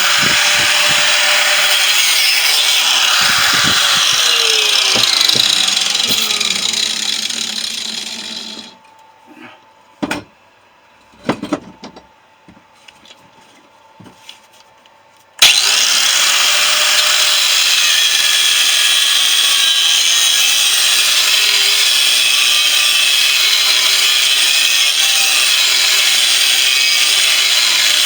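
Corded angle grinder cutting through the steel shell of a refrigerator compressor, loud and steady, its pitch shifting as the disc bites. It winds down about six to nine seconds in, and a few metal knocks follow in the pause. About fifteen seconds in it starts up again abruptly and cuts steadily.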